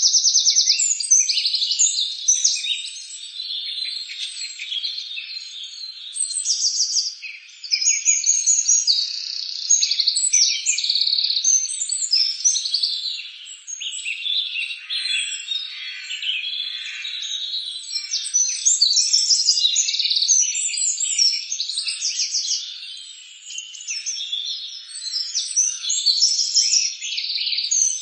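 Many small songbirds chirping and trilling at once, a dense chorus of overlapping high, quick calls and rapid note strings with no let-up.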